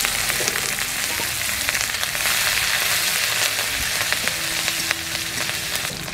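Chopped green chillies and curry leaves sizzling and crackling in hot mustard oil in a metal wok, with a spatula stirring them.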